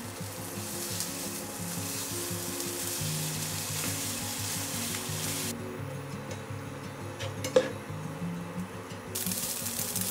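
Ground chicken mince sizzling as it fries in a nonstick pan and is stirred with a spatula, over soft background music. The sizzle drops away for a few seconds in the middle, where one sharp knock sounds, and returns near the end.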